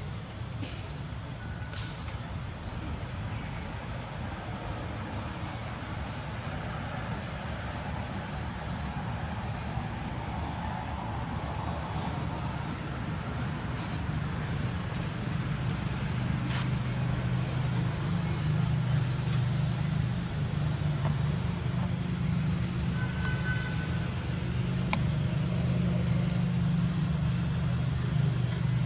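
Steady low motor hum, growing louder through the second half. A high, even insect-like drone with faint repeated chirps sits above it.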